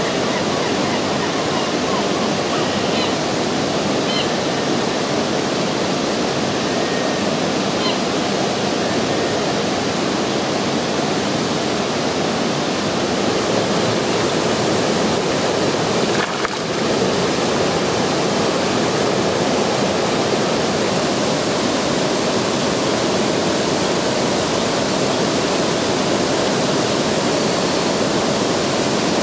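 Steady rush of river water pouring over a dam, with a few faint, short high bird calls in the first several seconds.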